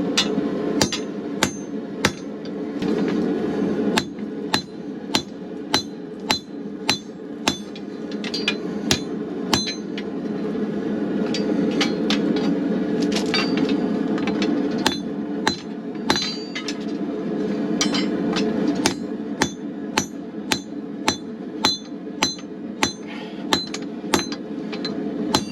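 Hand hammer striking hot steel on an anvil in a steady rhythm of about one and a half blows a second, each blow ringing briefly: blacksmith drawing out a forged bar. Under it runs the steady rush of a gas forge burner.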